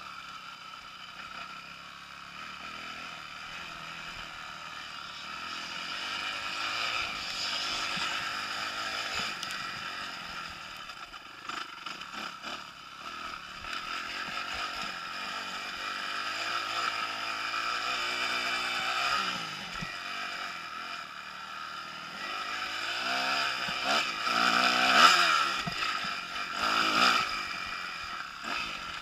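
Kawasaki KX250F four-stroke single-cylinder motocross engine being ridden hard, its revs rising and falling again and again through throttle and gear changes. It is loudest near the end.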